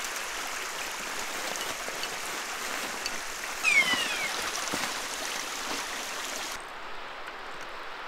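Steady rushing of running water, with a single short, falling whistle-like call about four seconds in. Near the end the sound thins and drops a little.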